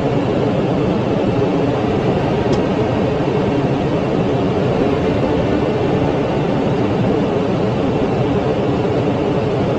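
Steady flight-deck noise of a Boeing 747-400 in flight: an even rush of air and hum.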